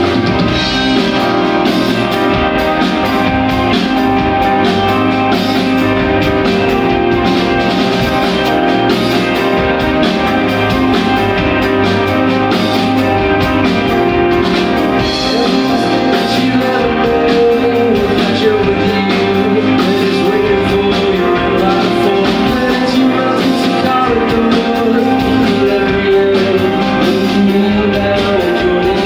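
Live rock band playing steadily: electric guitars, bass and drum kit, with a man singing.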